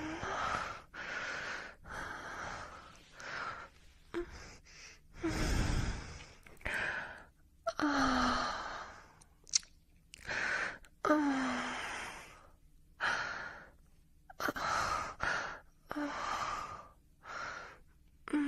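A person breathing heavily: a run of breathy exhales about one a second, several ending in a short, falling voiced sigh.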